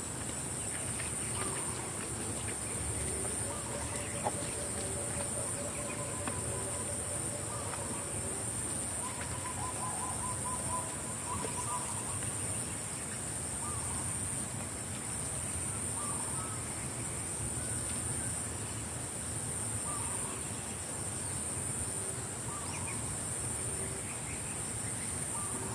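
Steady high-pitched insect chorus, pulsing slightly, with scattered short bird calls over it.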